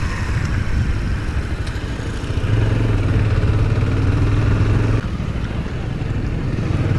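Motorcycle engine pulling away from walking pace after a speed breaker, with road and wind noise. A steady engine hum settles in about two and a half seconds in and dips briefly about five seconds in.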